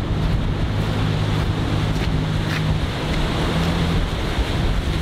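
Surf breaking and rushing water, with wind on the microphone and the steady drone of a small fishing boat's engine underneath.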